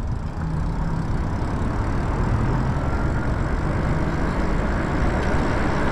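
Steady wind and tyre rumble from an electric bike rolling slowly over parking-lot pavement, with a faint rising whine about a second in.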